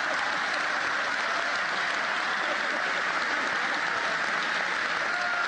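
Large banquet audience applauding steadily.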